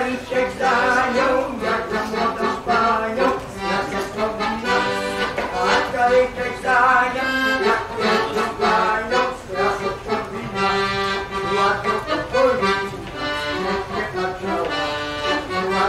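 Piano accordion playing a dance tune, melody over chords.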